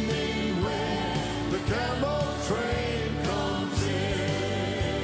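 Live gospel music: a band with piano, bass and drums playing a steady beat, with backing singers singing along.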